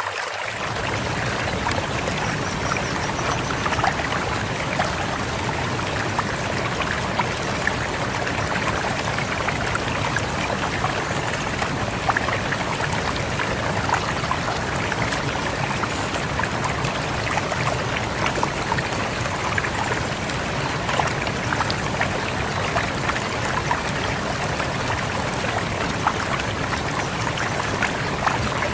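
Rushing river water flowing steadily over rocks, a constant full wash of water sound dotted with small splashes and gurgles.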